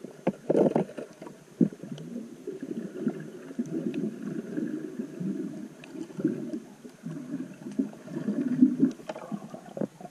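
Muffled underwater sound picked up through a camera's waterproof housing: uneven water rushing and churning against the housing as the diver moves, with scattered small clicks and knocks.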